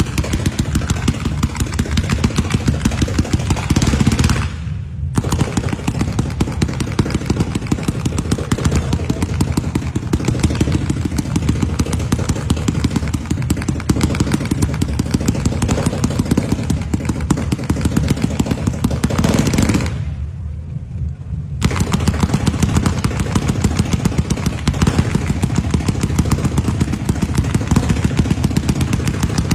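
Firecrackers going off in a rapid, continuous crackle of sharp bangs, like a long string of crackers, with a brief break about four seconds in and another about twenty seconds in.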